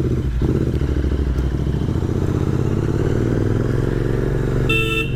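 Royal Enfield Continental GT 650's parallel-twin engine running through free-flow Red Rooster aftermarket silencers as the motorcycle pulls away, its pitch shifting with the throttle. A vehicle horn sounds briefly near the end.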